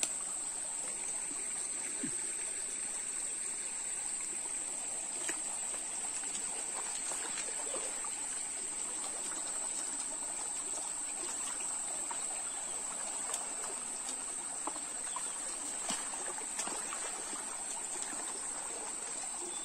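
Shallow rocky stream trickling and splashing, over a steady high-pitched whine, with a few faint clicks.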